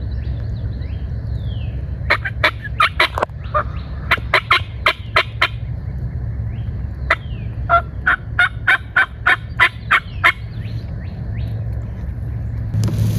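Wild turkey yelping: three runs of short, sharp notes a quarter-second or so apart, over a steady low rumble.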